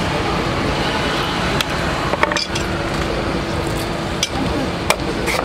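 A small knife cutting into the husk of a green coconut, with a handful of sharp cuts spaced about a second apart, over a steady background of street traffic.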